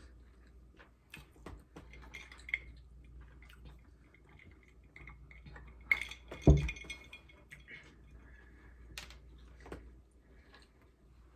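Eating sounds: a utensil clinking and tapping against a takeout food container, with scattered small clicks and one louder knock about six and a half seconds in.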